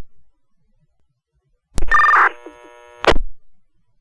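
Fire dispatch two-way radio channel between calls. About two seconds in, a transmission keys up with a click and a brief chirping burst of two alternating tones, typical of a radio's data ID burst. About a second of empty carrier follows, and a short static squelch-tail crackle ends it.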